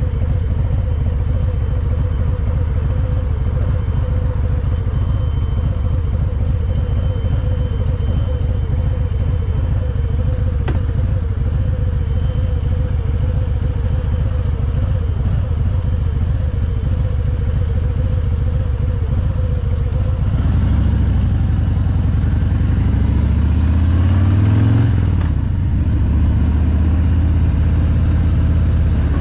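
Motorcycle engine running under way with a steady low drone. About two-thirds of the way through it revs up, its pitch climbing for a few seconds, then drops back to steady running.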